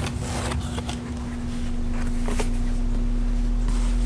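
Cardboard box and packaging being handled during unboxing: a few light clicks and scrapes over a steady low hum.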